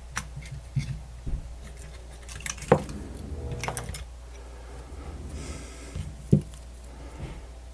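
Irregular small clicks and knocks from radio parts and tools being handled, with sharper taps a little under three, about four and about six seconds in.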